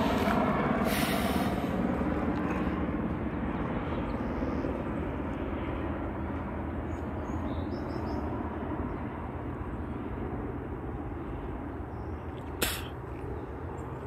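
Steady low rumbling outdoor background noise that slowly fades, with a single sharp click near the end.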